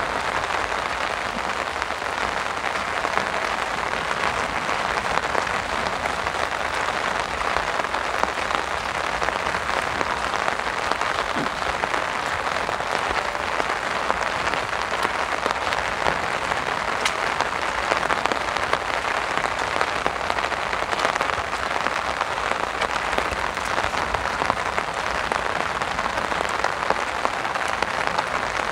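Heavy rain falling steadily on an umbrella: a dense, even hiss of drops with fine ticks of individual drops.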